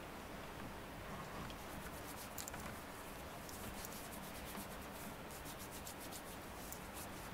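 Faint rustling with many light clicks and ticks over a steady low hiss.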